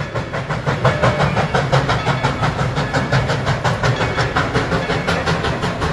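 Dollywood Express coal-fired steam locomotive working past on its line, with a loud, fast, even rhythm of beats, about five or six a second, over a low rumble.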